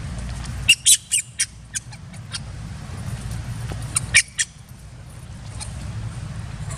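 Two quick runs of short, high-pitched animal chirps or squeaks, the first about a second in and the second about four seconds in, over a steady low rumble.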